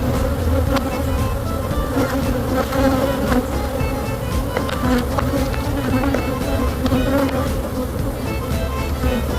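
Honey bee colony buzzing steadily around an opened hive, a dense hum, with scattered light clicks and knocks throughout.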